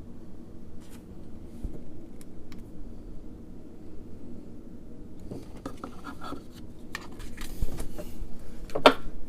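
A few light clicks, then scratching and rubbing handling noises that grow busier in the second half, with the loudest scrape near the end.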